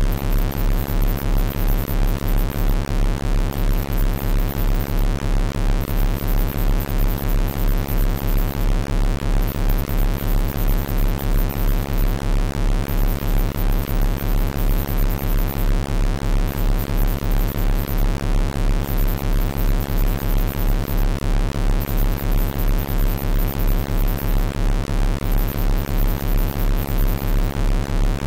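A synthesized low electronic tone, given as a 33.13 Hz Rife frequency, with a stack of steady overtones. It is held unchanged and throbs evenly about twice a second.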